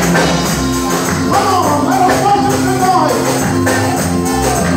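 Live church worship music: a keyboard holding sustained chords over a steady percussion beat, with a voice carrying over it for a couple of seconds in the middle.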